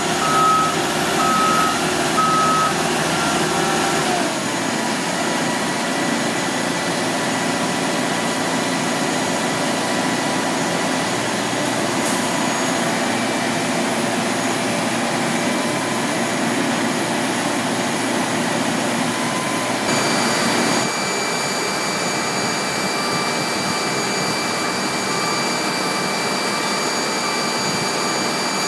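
Cargo loader's backup alarm beeping evenly for the first few seconds, then steady ramp machinery noise with a constant whine. A higher whine comes in about two-thirds of the way through, and fainter beeping returns near the end.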